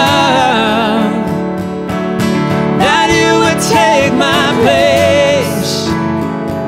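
Live worship music: a woman singing a sustained, wavering melody over strummed acoustic guitar and keyboard.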